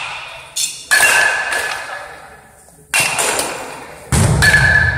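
Baseball bats striking pitched balls in indoor batting cages: a sharp crack about a second in, another at three seconds, then a duller thud and a further hit just after four seconds. Some hits ring on briefly like a metal bat, and each echoes in the large hall.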